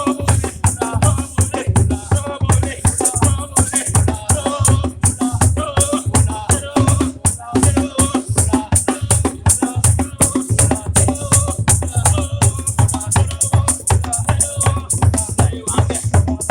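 African gospel praise music with a steady beat, shakers or rattles, and voices singing.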